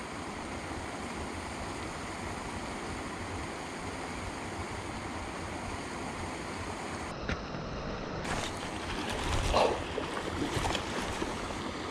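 Steady wind noise rushing across the microphone, with a few short clicks and faint brief sounds in the last four seconds.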